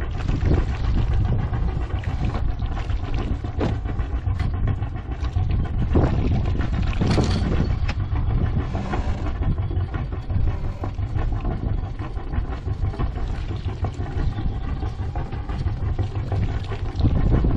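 Sailing yacht's inboard engine idling with a steady low rumble, while mooring lines are handled on deck, with a few knocks and rustles about six to seven seconds in.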